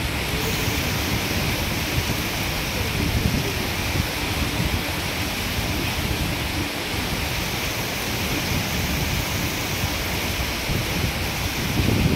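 Muddy floodwater running fast down a street, a steady rushing noise without pause.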